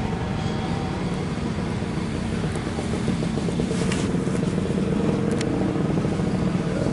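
Vintage motocross motorcycle engines running steadily, growing a little louder in the last few seconds.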